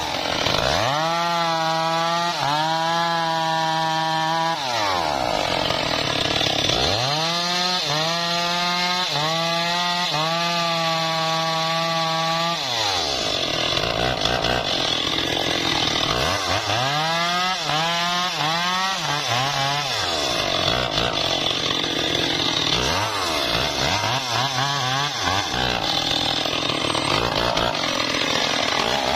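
Two-stroke petrol chainsaw cutting through a dead mango trunk. Its engine climbs to a steady high pitch, then drops and strains as the chain bites into the wood, with a rasping cut, and this happens several times over.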